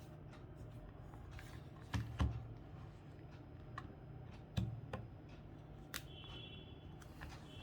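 Small clicks and taps of a plastic calculator case being handled during a teardown, with two louder knocks about two seconds in and another about four and a half seconds in.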